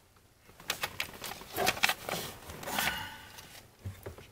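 Hands fitting a car's dashboard switch panel back into place: scattered clicks and taps, with a short rubbing scrape about two to three seconds in.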